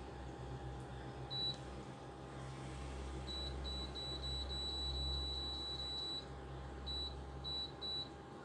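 Induction cooktop's touch-control panel beeping as its timer is set: a single beep about a second and a half in, then a fast run of short beeps, about four a second, as the timer counts up to 45 minutes, then three more beeps near the end. A steady low hum runs underneath.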